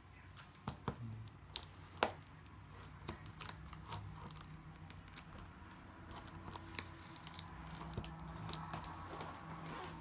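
Cardboard box and plastic packaging being opened and handled: crinkling and tearing, with several sharp knocks and clicks, the loudest in the first two seconds.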